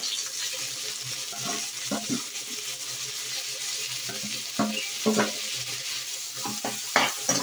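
Chopped onion and tomato sizzling in hot oil in a steel kadai, with a spatula scraping and knocking against the pan now and then as they are stirred.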